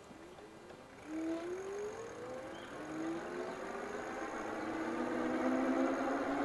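Electric bike motor whining at full throttle from a standstill in gear 5, its pitch rising steadily as the bike gathers speed. Tyre and wind noise grow louder along with it.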